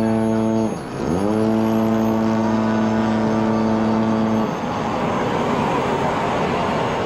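Model airplane piston engine running steadily at high throttle. About a second in it is chopped sharply and brought straight back up to the same pitch; about four and a half seconds in its tone drops out, leaving a steady rushing noise.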